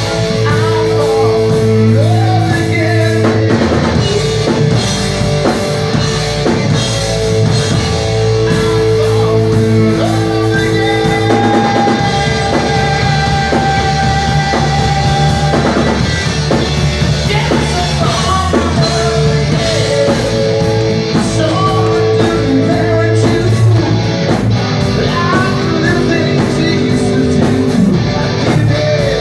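Rock music with a drum kit, guitar and a singing voice, playing loud and unbroken.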